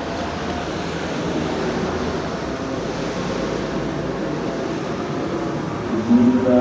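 Steady rush of heavy rain with faint group chanting under it. Near the end the chanting voices swell with long held notes.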